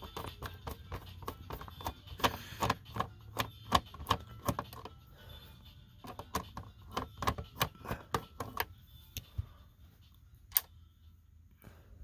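Phillips screwdriver turning a stubborn screw in a plastic computer back cover: rapid, irregular clicking of the bit and driver in two runs, then a few scattered clicks and one sharp click near the end. The bit is a poor fit for this screw.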